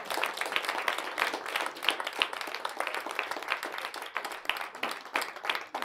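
Audience applauding, many hands clapping at once, thinning out toward the end.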